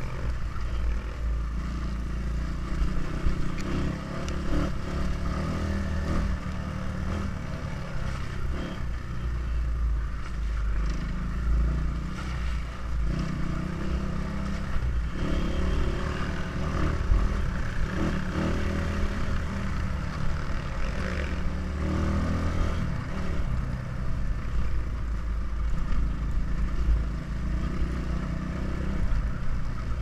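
Dirt bike engine running under riding load, its note rising and falling with the throttle, with clattering from the bike over the rough dirt track.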